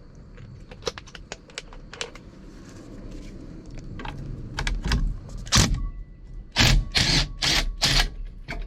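Light metal clinks of a socket being fitted, then a cordless DeWalt impact wrench fired in about six short bursts from about halfway through, breaking loose the steering wheel retaining nut.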